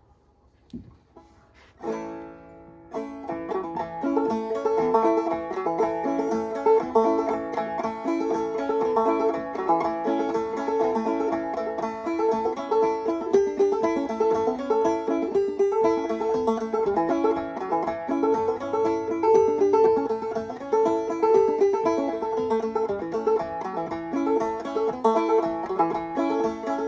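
Five-string banjo played clawhammer style, an old-time fiddle tune picked at a steady, driving rhythm. It starts with a struck strum about two seconds in, and the full tune runs from about a second later.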